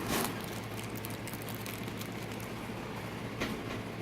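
Brief rustles of a small bead bag and beads being handled, one at the start and another about three and a half seconds in, over a steady low hum.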